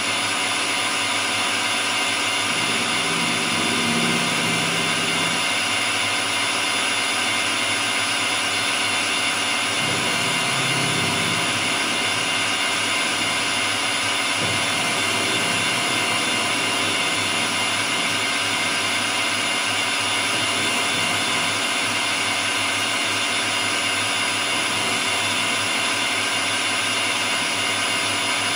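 Metal lathe running steadily at about 1,000 RPM, its motor on a variable-frequency drive turning through the gearbox with a steady whine, while facing the end of a high-tensile steel threaded bar.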